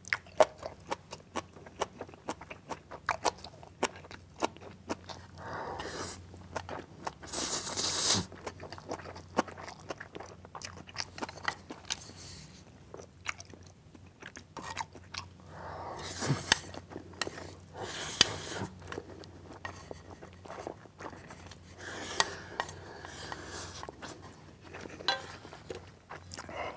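Close-miked chewing of Buldak-getti noodles (Jjapaghetti mixed with Buldak spicy noodles), with many wet clicks of the mouth. Several slurps of a second or two, the loudest about eight seconds in.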